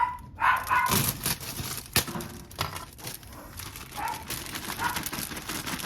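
A dog giving short, high whines, with a few sharp knocks in between.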